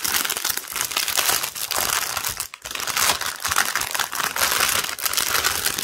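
Plastic packaging of a diamond painting kit crinkling loudly and continuously as it is handled, with a brief pause about two and a half seconds in.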